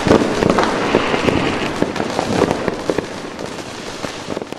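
Diwali firecrackers and fireworks going off, a dense run of bangs and crackles that fades away toward the end.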